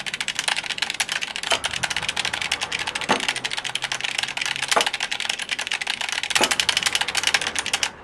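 Fast, continuous typing on a computer keyboard, with a heavier click about every second and a half.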